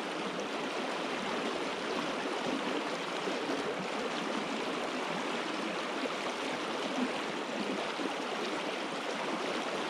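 Running water of a river: a steady, even rush.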